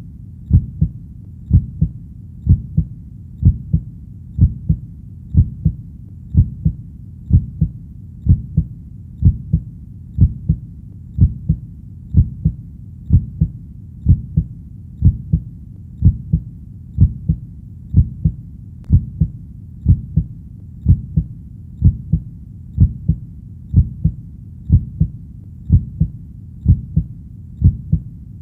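Heartbeat: a steady lub-dub of paired low thumps, repeating evenly about once a second.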